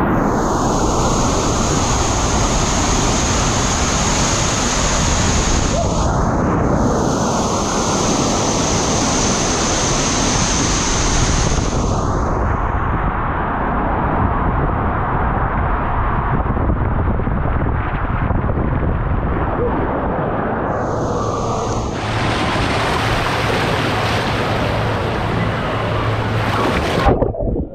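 Water rushing and splashing around a rider sliding feet-first down waterslides, first through enclosed tube slides, then down a short open slide. It is loud and steady, changes abruptly as one slide gives way to the next, and ends with a brief louder splash.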